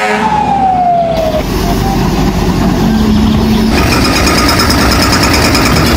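A fire engine siren falls in pitch over about the first second, amid heavy truck engine and road noise. A few seconds in, a fast, even pulsing joins the noise.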